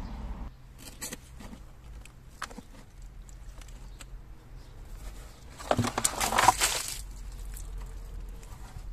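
Kitchen scraps (vegetable peels, onion skins and eggshells) tipped from a bowl into a hole in soil: a few faint clicks, then a loud burst of rustling and clattering lasting about a second, about six seconds in.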